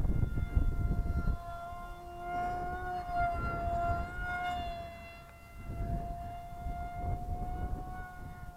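Radio-controlled NAMC MiG-35B model jet flying overhead, its motor giving a steady high whine that rises slightly in pitch about three seconds in and settles back. Wind buffets the microphone underneath.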